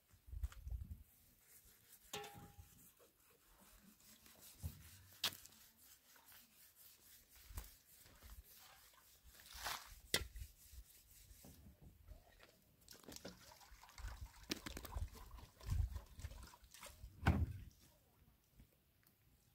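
Faint, scattered clicks, scrapes and knocks of hand work on a black plastic water hose lying on gravel, with a few low thumps among them.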